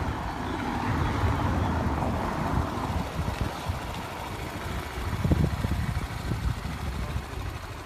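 125 cc motorbike engine running at idle, a steady low rumble, with a louder swell about five seconds in.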